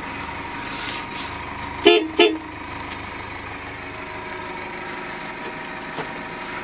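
Horn of a 2013 GAZelle Next sounded in two short toots about a third of a second apart, over the steady hum of the idling engine.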